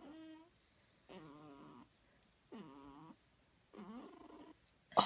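A newborn baby making short little cooing grunts in its sleep, four of them about a second and a half apart, each with a slightly wavering pitch.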